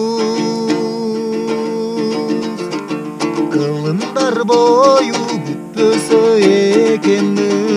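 Background music led by plucked string instruments, with a melody that wavers and glides in pitch.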